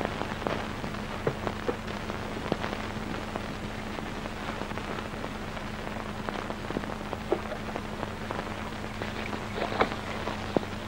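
Steady crackling haze with scattered sharp pops over a constant low hum.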